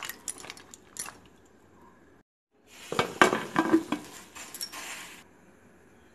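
A steel ladle clinking against the inside of a stainless-steel pressure cooker pot, then, after a short break, a cluster of metal clanks and scrapes as the Prestige pressure cooker lid is put on and closed.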